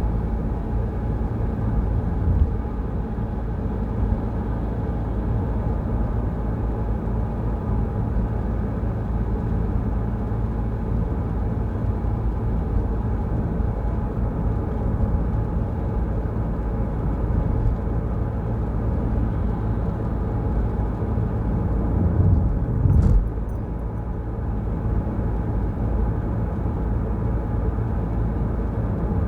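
Car driving steadily on a wet road, a constant low rumble of engine and tyres. About three-quarters of the way through, a louder thump rises and then cuts off, like the car going over a bump or through standing water.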